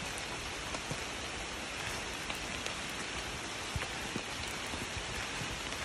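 Steady rain falling, a constant hiss with a few scattered drop ticks.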